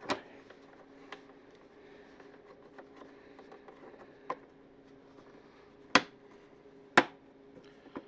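A handful of sharp clicks and knocks as a motorcycle's fairing is shifted and pressed into position over its screw holes. The two loudest come a second apart near the end, over a faint steady hum.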